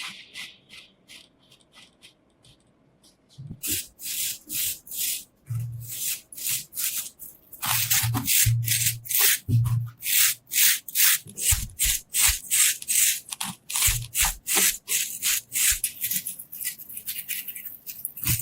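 Rhythmic hand scrubbing or scraping strokes on the rust- and dirt-crusted metal lamp, about two to three strokes a second, with occasional dull knocks. The strokes begin a few seconds in, after a short near-quiet spell.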